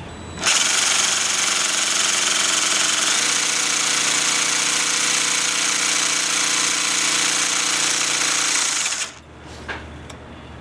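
Craftsman CMCS600 cordless jigsaw with a Bosch T130DG diamond blade cutting 1/4-inch ceramic tile: the saw starts about half a second in, runs steadily with a slight change in its tone about three seconds in, and stops near the end, followed by a small click.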